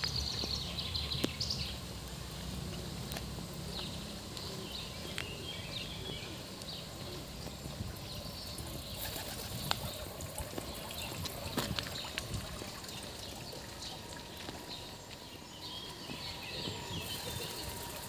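Pigeons flapping their wings as they fly up and past, with a few short sharp flaps. Small birds chirp now and then.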